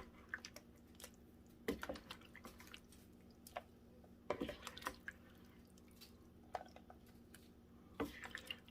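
Faint water drips and small clicks at irregular intervals.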